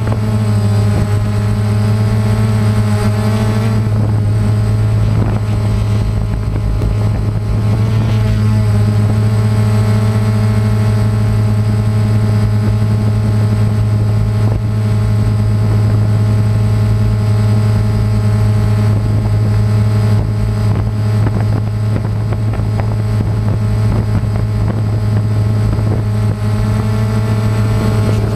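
DJI Phantom quadcopter's motors and propellers running in a low hover, heard close from the camera on the drone itself: a loud, steady drone with a low hum and a stack of overtones, its pitch wavering slightly now and then.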